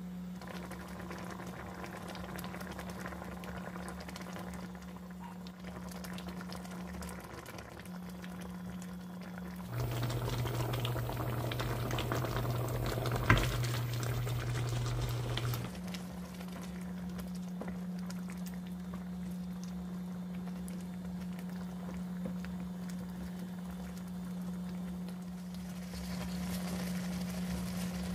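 Paprika-tomato pasta sauce simmering and bubbling in a frying pan, over a steady low hum from the cooktop. Midway, spaghetti is tipped in and worked with tongs; the sound grows louder for a few seconds, with one sharp clack of metal on the pan.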